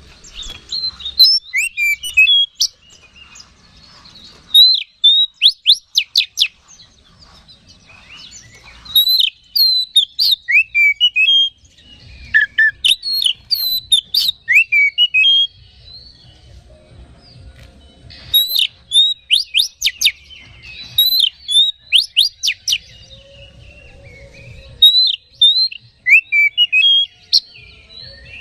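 Oriental magpie-robin (kacer) singing in full voice: loud phrases of sharp, rapid whistled notes and sweeping trills, each lasting two to three seconds with short pauses between, about seven phrases in all. This is the energetic, full song ("gacor") that hobbyists use as a lure to rouse other kacer.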